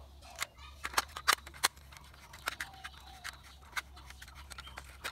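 Hard plastic toy parts clicking and tapping as a small screw is driven with a screwdriver into a toy auto rickshaw's plastic body: irregular sharp clicks, the loudest about a second in.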